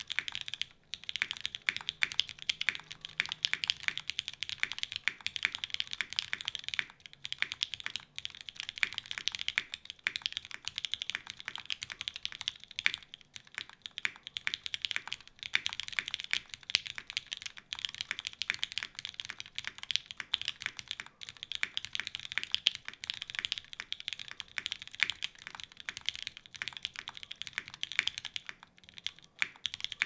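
Fast, continuous typing on a Unikorn R2.2 mechanical keyboard: an aluminium plate in an X-Ring mount, lubed and filmed Cherry MX Black linear switches with 60 g springs, and GMK KA 1953 keycaps. The typing pauses briefly a few times, about a second in, around seven to eight seconds in, and near the end.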